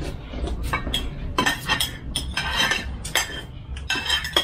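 Metal spoons clinking against ceramic plates and bowls as several people eat, an irregular run of clinks and taps.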